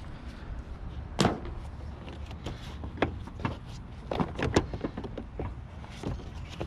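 Irregular hard plastic clicks and knocks, several sharp taps scattered through, from a car's windshield cowl panel being handled and worked into place; the loudest knocks come about a second in and again around four and a half seconds.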